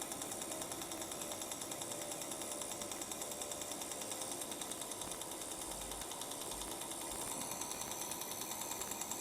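Fotona Er:YAG laser (Dynamis, PS03 handpiece) firing NightLase pulses as it is passed over the soft palate, making a rapid, even clicking.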